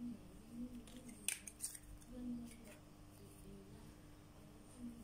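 Small baking tools being handled, giving a few sharp clicks, the loudest two in quick succession about a second and a half in, over a faint steady hum.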